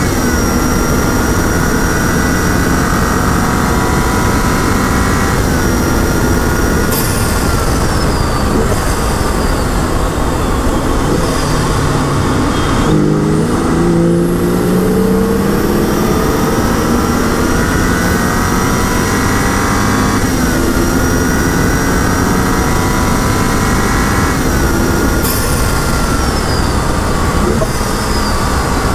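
2011 BMW 135i's turbocharged 3.0-litre inline-six driven hard on a track lap, over wind and tyre noise. The engine note falls as the car slows for a corner about halfway through. It then climbs again under acceleration, with two upshifts in the later part.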